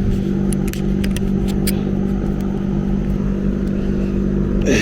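A steady motor hum with a low rumble, with a few short light clicks about a second in.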